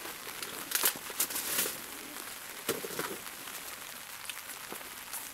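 Plastic packaging being handled: light clicks and crinkles as a snack is pressed out of a thin plastic tray, a few in the first three seconds and fewer after.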